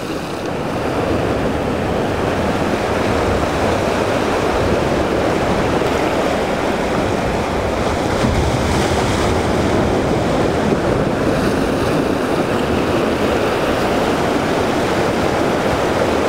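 Ocean surf washing steadily against shoreline rocks, with some wind buffeting the microphone.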